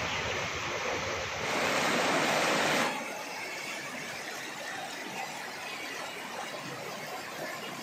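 Floodwater rushing, a steady, even noise of fast-flowing water. It swells for about a second and a half, then drops abruptly to a lower, steadier rush about three seconds in.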